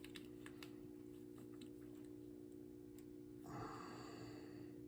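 Near silence: a steady low hum with a few faint small clicks and a brief soft rustle as a twisted wire connection is handled and a connector is fitted back on.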